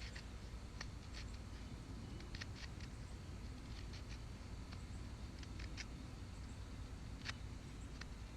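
Knife shaving thin slivers off a piece of fatwood: scattered small scrapes and clicks over a steady low background noise.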